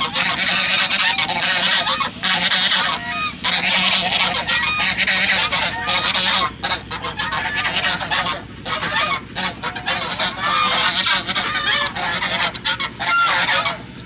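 A flock of white domestic geese honking, many calls overlapping almost without a break, with a few short lulls in the second half.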